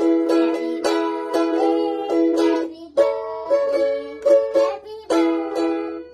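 Ukulele strummed in a steady rhythm, changing chord about every two seconds, with short dips in the sound just before the changes about halfway through and near the end.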